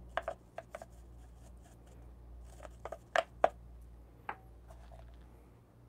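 Small brush scratching and flicking leftover coffee grounds out of the burrs of a Pietro Pro hand grinder: scattered short scrapes and light taps, the loudest a pair about three seconds in.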